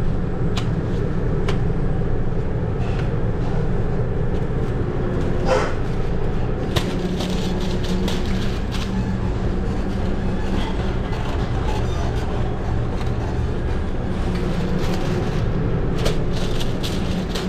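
Steady loud rumble of a commercial kitchen's ventilation and equipment, with scattered clicks and clanks of pans and utensils throughout.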